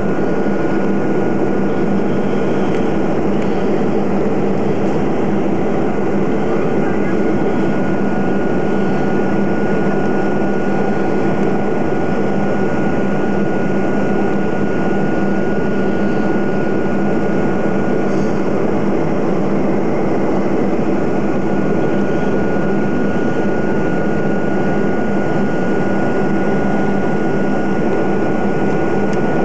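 Steady, even engine and airflow noise inside an airliner cabin at cruise, loudest in the low-middle range, with a thin steady high tone running above it.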